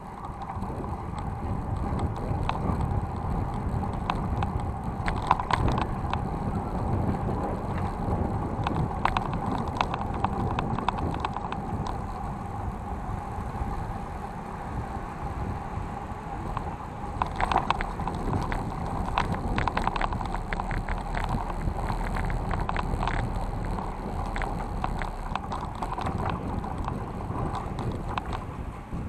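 City bike rolling along town streets, heard through a handlebar-mounted action camera: steady tyre and rolling noise with rattling and clattering over bumps in the pavement. The clatter is thickest about five seconds in and again from about seventeen to twenty-two seconds.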